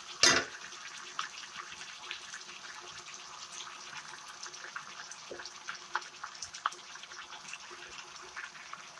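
Chicken pieces in spice paste sizzling steadily in hot oil in a wok, with many small crackles and pops. A metal ladle gives one loud, brief clatter in the wok about a quarter second in.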